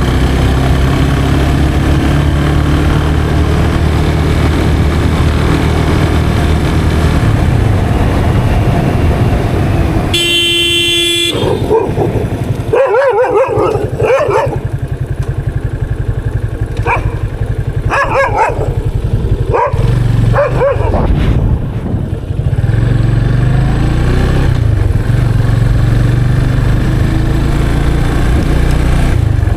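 Yamaha FZ 25's 249cc single-cylinder engine running steadily, then a vehicle horn sounds once for about a second. Dogs then bark repeatedly for several seconds while the engine runs quieter, before the engine pulls again near the end.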